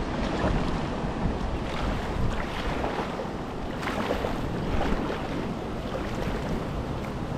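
Wind buffeting the microphone over moving river water, with several short splashes from a kayak on the water.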